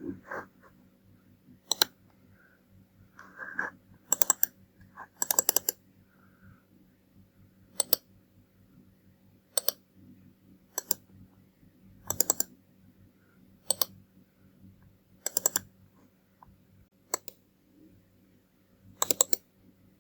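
Computer mouse buttons clicking: single clicks and quick double clicks, one every second or two, over a faint steady hum.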